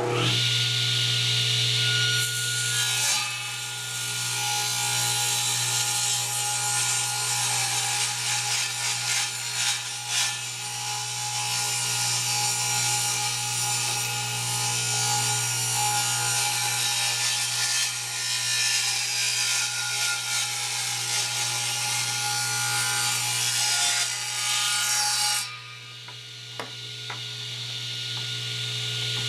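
Table saw running and ripping wooden strips to thickness, a steady motor hum under a dense cutting noise. The cutting stops about 25 seconds in while the saw keeps running.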